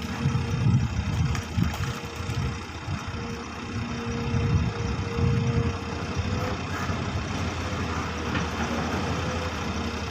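XCMG XE215 long-reach excavator's diesel engine running under working load, with its low rumble swelling in surges. A thin steady whine runs over it and lifts slightly in pitch about two-thirds of the way through.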